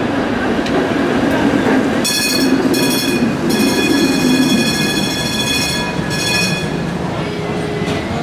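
Heritage PCC streetcar passing close by on street track, its steel wheels squealing high-pitched against the rails over the running rumble. The squeal starts about two seconds in, breaks off briefly twice, and fades near the end.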